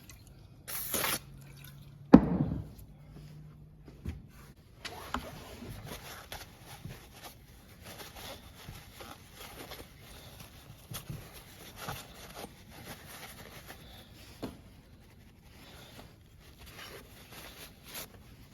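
Handling noises on a partly dismantled kerosene torpedo heater. A short hiss comes about a second in, then a sharp knock just after two seconds, which is the loudest sound. After that come faint clicks and rustles as the parts are handled.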